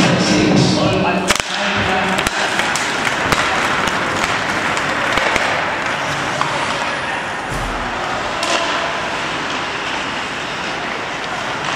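Arena music stops abruptly about a second in, at the faceoff; then the sounds of ice hockey play: a steady scraping hiss of skates on the ice with a few sharp cracks of sticks and puck.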